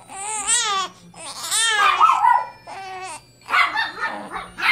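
One-month-old baby fussing and crying: four short, high, wavering cries in a row, the middle two loudest, the last one rougher and noisier.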